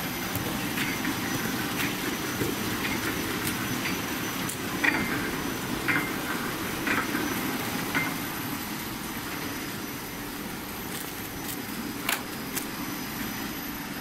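Horizontal flow-wrap packaging machine running as it wraps bars in film, a steady mechanical hum with sharp clacks about once a second. Near the end come a few scattered clicks.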